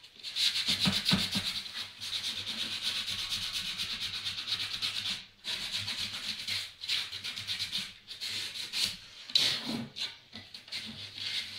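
Hand sanding of wood: quick, even back-and-forth rubbing strokes, with a short pause about five seconds in.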